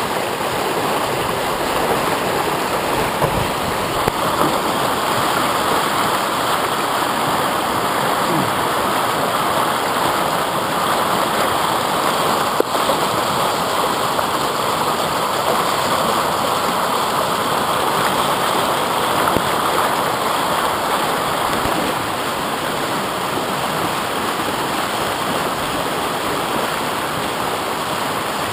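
Whitewater rapids rushing steadily around a river standing wave, close to the microphone. A single sharp click about twelve seconds in.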